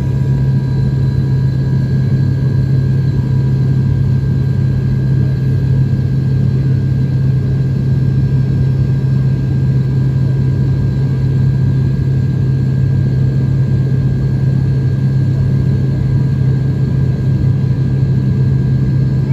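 Cabin drone of a Novoair ATR 72-500 turboprop's engine and propeller, heard from a window seat beside the propeller. It is a steady hum with a strong low tone and a few fainter, higher steady tones.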